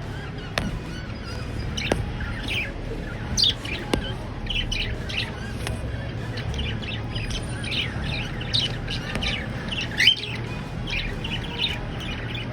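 Pet cockatiels and budgies chirping, many short overlapping chirps and calls throughout, with a few sharp clicks in the first few seconds.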